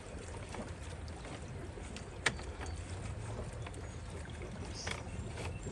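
PVC union nut on pool plumbing being handled and threaded back on by hand: light plastic ticks and one sharp click about two seconds in, over a steady low hum.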